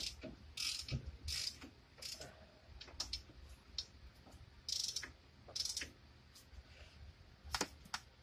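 Half-inch drive flex-head ratchet on an extension clicking in short irregular runs, with single clicks between, as 15 mm brake bolts are worked loose.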